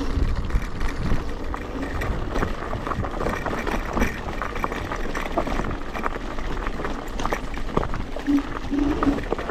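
Wind buffeting the microphone with the rattle and clatter of an electric scooter riding over a rough, potholed track.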